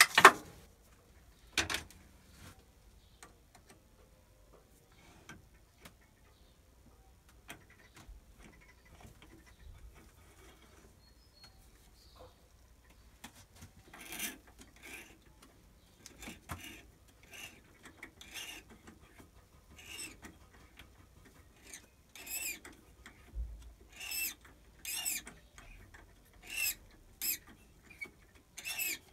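Thread tap re-cutting the thread of a metric brass nut by hand, giving short scraping squeaks that come in a steady run of about one to two a second through the second half. A sharp knock at the very start and another about two seconds in.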